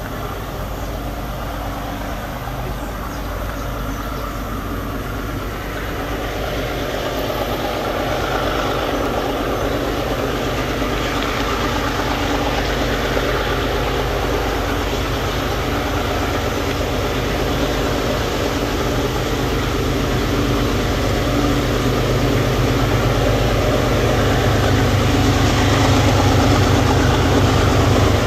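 Diesel-electric freight locomotive approaching slowly at the head of a train, its engine drone growing steadily louder.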